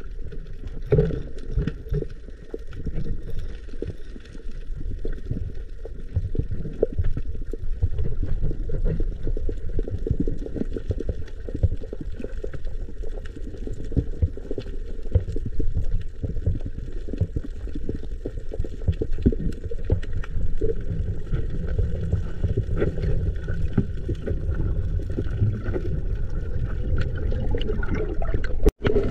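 Water gurgling and sloshing right at the microphone, muffled and low-pitched, with scattered small clicks. The sound cuts out for an instant near the end.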